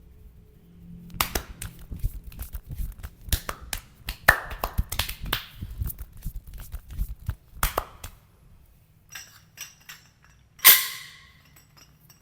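Hands slapping and striking the body in quick, uneven smacks, as in a percussive massage, for several seconds. Then a few lighter clicks and one loud sharp knock with a short ring near the end.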